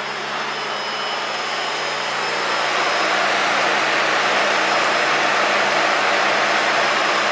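Electric washer pump motor running and pushing water out through intercooler spray nozzles: a steady hum under a hiss of spray that grows louder about two and a half seconds in. The replacement pump is working properly.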